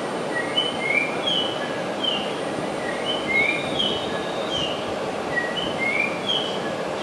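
Short bird-like chirps repeating in a regular cycle about every two and a half seconds, over a steady hum from a Shinkansen train standing at the platform.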